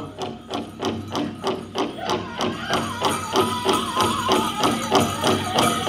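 Powwow drum beaten in a steady beat of about two strokes a second, with the drum group's high, wavering singing coming in about halfway through.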